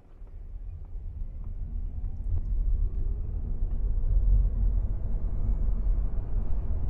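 A Geely Geometry pulling away and gathering speed, heard from inside the cabin: a low road and tyre rumble that builds over the first few seconds, then holds steady, with a faint rising whine.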